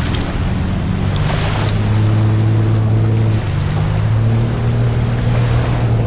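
A boat's engine droning low and steady, its pitch shifting slightly partway through, over wind noise and small waves lapping the shore.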